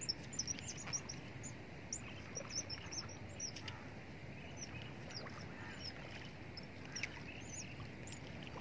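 Birds chirping: quick runs of short, high chirps, thickest in the first few seconds and again near the end, over a steady low outdoor hum.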